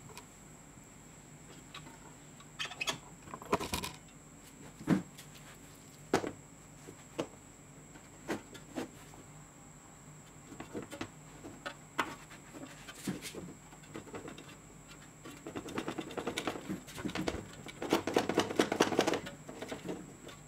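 Scattered light clicks, taps and knocks from hands handling wires and parts in a bench grinder's painted sheet-metal base. Near the end comes a longer stretch of rustling and knocking as a cable is worked into place.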